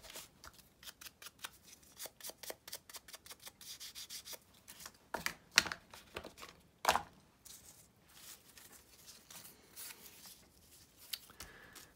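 Paper edges rubbed and dabbed against a Distress Oxide ink pad to ink them, in quick scrubbing strokes about five a second, with a few sharper knocks around the middle.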